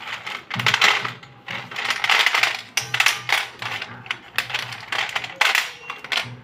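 White slate pencils clicking and clattering against each other and a stainless steel plate as a hand stirs and rakes through them, in repeated bursts of crisp clinking.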